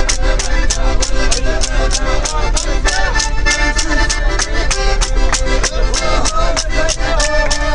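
A button accordion plays a fast Circassian şeşen dance tune, with sharp claps keeping a quick, steady beat. In the second half, voices call out over the music.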